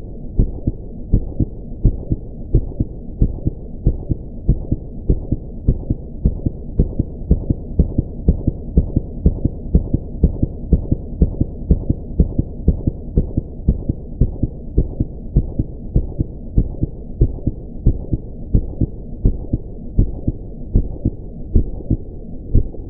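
Human heart sounds: the lub-dub of the heartbeat repeating in a steady, even rhythm over a continuous low hum.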